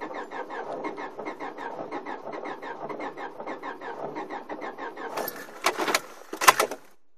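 Car starter cranking the engine in a steady rhythm of about six beats a second without it catching. A few loud clatters and knocks follow near the end, then it stops. The owner wonders whether water from melted snow has got into the intake.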